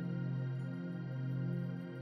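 Soft new-age background music of long held tones that swell gently.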